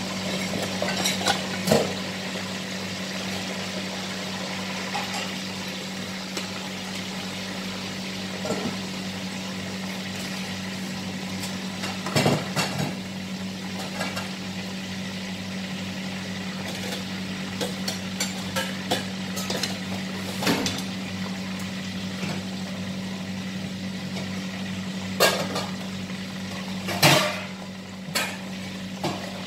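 Metal spatula and slotted skimmer clinking and scraping against a wok while food is stirred, with several sharp clanks spread through, over a steady low hum.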